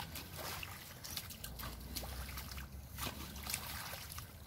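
Shallow muddy creek water being stirred by hands and feet: irregular small splashes and sloshing.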